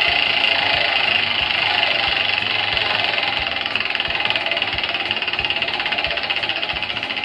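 Prize wheel spinning, its pointer ticking rapidly against the pegs; the ticks slow and become separate over the second half as the wheel loses speed.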